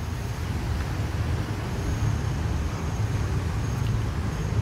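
Road traffic: a steady low engine rumble, with a hum that grows stronger about two seconds in.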